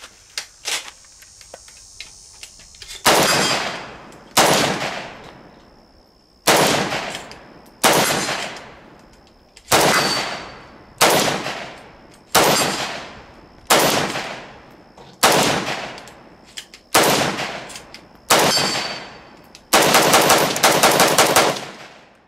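AK-47 rifle with a JMAC RRD-4 muzzle brake firing Tula 7.62x39 ammunition: after a few small clicks of handling, eleven single shots come about a second and a half apart, each ringing off briefly. Near the end comes a fast string of shots close together.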